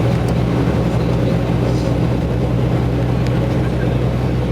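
Tour bus engine and road noise heard inside the cabin: a steady low drone with an even engine hum.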